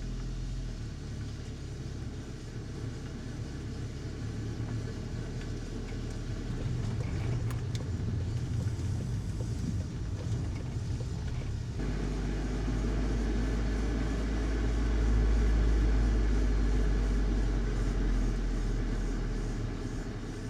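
Volkswagen Golf GTI mk7.5 being driven: a steady low rumble of its 2.0-litre turbocharged four-cylinder engine and road noise. About twelve seconds in the rumble turns deeper, swells for a few seconds and then eases off.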